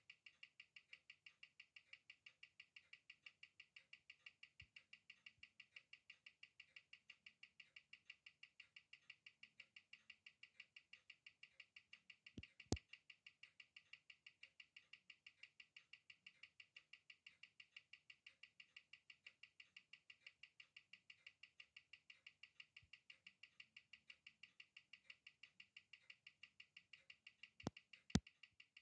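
Faint, even ticking of a Nomos watch's hand-wound ETA 7001 movement, at about six ticks a second (21,600 beats per hour), running steadily with its newly replaced balance wheel. A few sharper clicks come about halfway through and again near the end.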